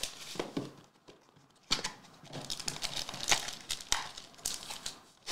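Foil-wrapped Spectra football card packs crinkling and rustling as they are handled, in irregular bursts with a short lull about a second in.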